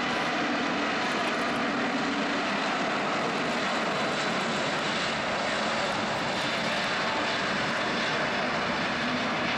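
Airbus A380's four Engine Alliance GP7200 turbofans at takeoff thrust during the takeoff roll: a loud, steady rush of jet noise.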